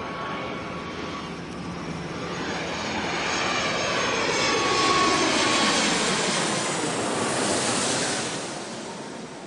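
Jet airliner flying past, its engine whine sliding down in pitch as the noise swells, peaks, then fades near the end.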